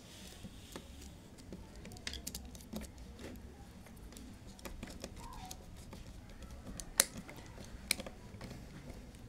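Small scattered clicks and taps of a screwdriver working a terminal screw on a contactor while a wire is fed into the terminal, with two sharper clicks about seven and eight seconds in.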